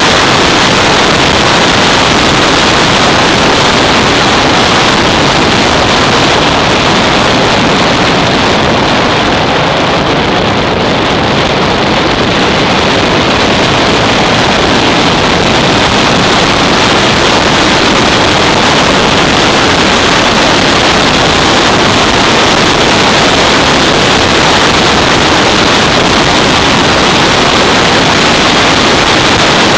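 Steady, loud wind rush over an onboard microphone on a Yamaha SR 500 single-cylinder motorcycle riding at speed, the engine buried under the noise. It eases slightly about ten seconds in.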